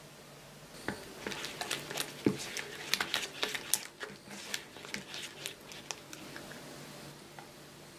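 Silicone spatula creaming softened butter in a mixing bowl: irregular squishing and scraping strokes against the bowl's side, starting about a second in and easing off after about six seconds.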